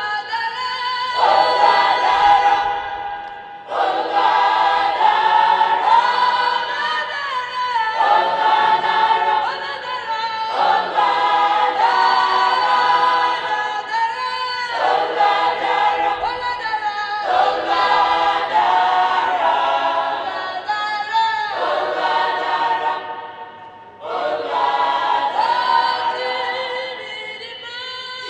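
A choir singing in sung phrases a few seconds long, with short breaths between them.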